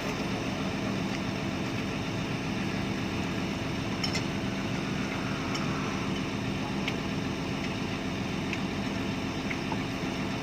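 Heavy diesel engine idling steadily, with a few faint clicks along the way.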